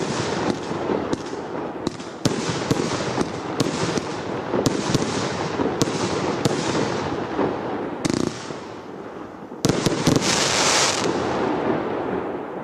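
Brothers Pyrotechnics RS3 firework going off: a run of sharp bangs, each followed by hissing and crackling. About ten seconds in comes a louder, dense crackling burst, which then fades away.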